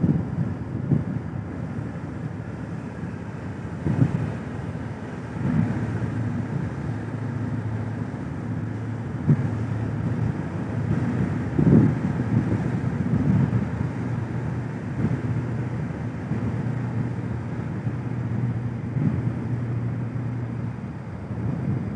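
Low steady hum of a large passenger ship's engines as the ship manoeuvres away from the pier; it sets in about five seconds in. Gusts of wind buffet the microphone several times.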